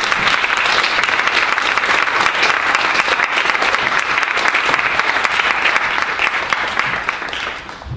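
Audience applauding: a dense, even clatter of many hands clapping that thins out near the end.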